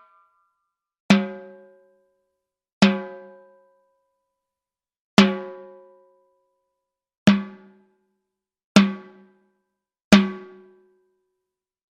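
Timbales struck with single hits, six times at uneven gaps of about one and a half to two and a half seconds. Each stroke rings with a clear pitch and fades out over about a second.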